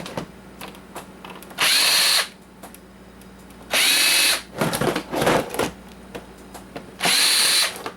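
Power drill-driver spinning in three short bursts of under a second each, backing out the screws that hold the bottom of a coffee maker, with small clicks and handling noise between the bursts.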